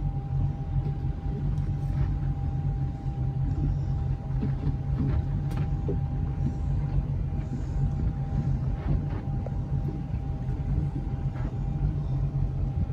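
Powerboat's sterndrive engine running steadily at a slow cruise, a deep even rumble under way on calm water.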